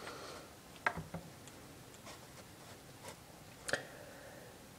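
A few faint, sharp clicks and taps, about three over several seconds, from fingers handling and tapping an iPhone's touchscreen, with quiet room tone between.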